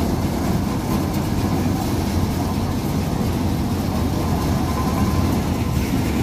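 Tractor-driven threshing machine running: a steady, heavy rumble of engine and machinery that holds the same throughout.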